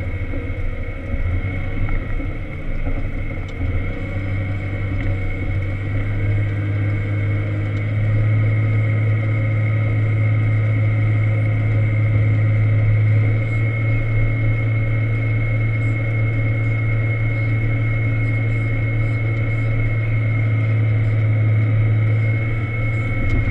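Volvo L70 wheel loader's diesel engine running steadily, heard from inside the cab, with a thin steady high whine over it. About eight seconds in the engine note grows louder and stays up as the loader pushes a load of snow.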